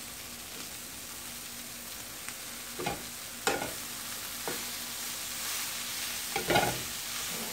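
Vegetables sizzling steadily in olive oil in a skillet as carrot ribbons are added and stirred in with a wooden spatula. A few sharp knocks of the spatula against the pan come from about three seconds in.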